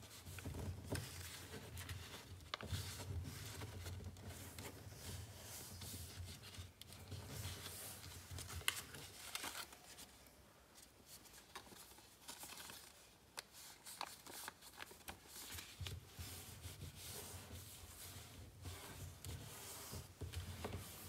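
A sheet of paper being folded by hand, the creases pressed and rubbed flat with the fingertips: quiet crinkling and rubbing with scattered sharp crackles, the sharpest about eight and a half seconds in.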